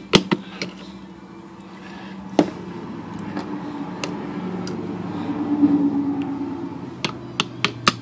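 Metal clicks and taps of needle-nose pliers working a washer onto the centre post of an Oliver No. 5 typewriter's mainspring cap: a few scattered sharp clicks, then a quick run of taps, about five a second, near the end.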